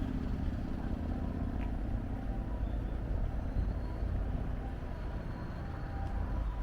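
Road traffic passing: a steady low rumble of cars.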